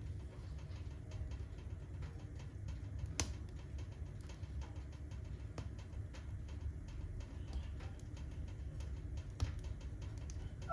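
Wood fire burning in a fireplace, crackling: scattered small sharp pops over a steady low rumble, with a louder pop about three seconds in and another near the end.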